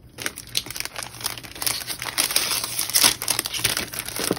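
Sheets of decorative paper being handled and shuffled, an irregular rustling and crinkling that grows a little louder about three seconds in.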